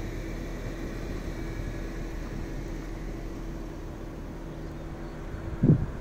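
Level crossing warning sounding as the road lights change to flashing red: a steady tone. Wind buffets the microphone with loud gusts near the end.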